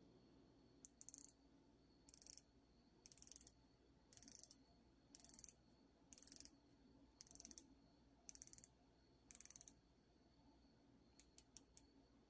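Bronze MMI Cuttlechron dive watch's rotating bezel being turned step by step, its ratchet clicking in short quick runs about once a second, nine runs in all, then a few single clicks near the end. The clicks are faint.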